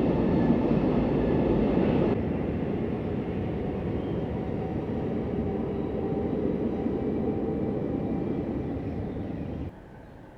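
Train running along the track, a steady rumble with hiss. It steps down abruptly about two seconds in and drops sharply near the end.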